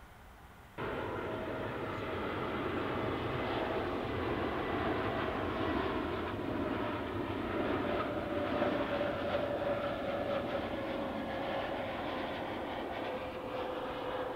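Jet airliner landing: steady engine and airflow noise with a tone that slides slowly down in pitch as the aircraft passes. The sound cuts in abruptly just under a second in.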